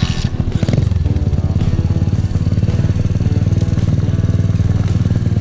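SSR 125 pit bike's single-cylinder four-stroke engine revving up a little under a second in as the bike pulls away, then holding steady under throttle.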